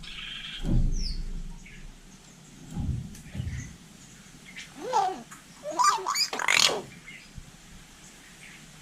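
Hill myna calling, with a few loud, short cries that sweep up and down in pitch from about five to seven seconds in. Two low thuds come earlier, about one and three seconds in.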